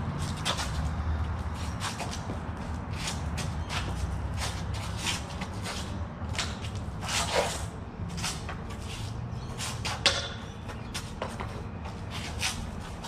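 Two people blade-sparring: shuffling and stepping footwork with scattered light clicks and taps, and one sharp knock about ten seconds in, over a low steady rumble.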